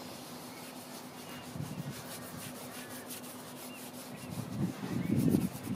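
Rubbing and rustling as a wide flat brush is swept over watercolour paper to wet it, in short bouts, the loudest about five seconds in.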